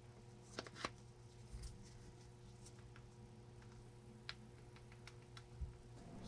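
Near silence: room tone with a steady faint hum and a few faint, brief clicks.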